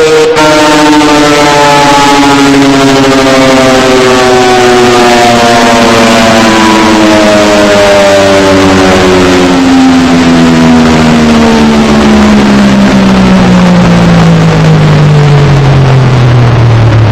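ACA P-50 outdoor warning siren winding down after shutoff, one very loud tone falling steadily in pitch the whole time.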